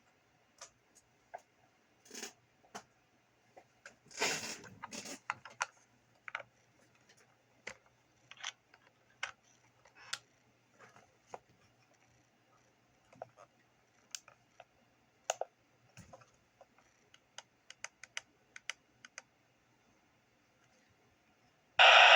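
Scattered small clicks and knocks from handling a handheld CB radio, with a denser clatter about four seconds in. Just before the end a loud, steady static hiss from the radio's speaker cuts in suddenly.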